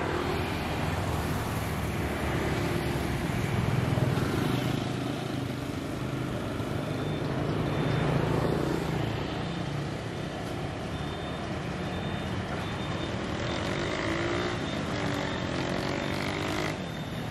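Street traffic: a steady wash of passing cars and motorbikes, with engines swelling as vehicles go by about four and eight seconds in.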